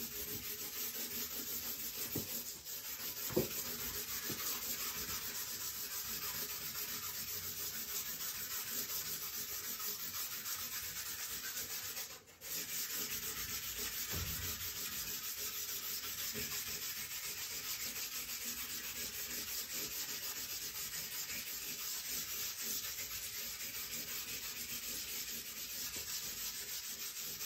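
A stick of charcoal scrubbed back and forth over drawing paper on an easel, laying a dark tone across the sheet: a steady scratchy rubbing with a short pause about halfway.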